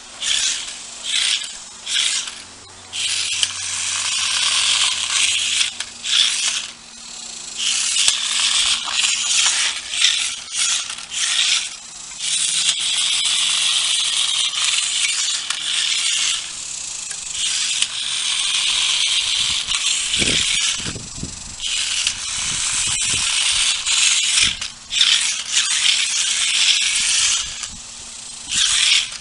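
Small toy RC car's electric drive motors whirring and plastic body and wheels rattling as it is driven, in bursts that start and stop every second or few seconds. A few low thumps come about two-thirds of the way through.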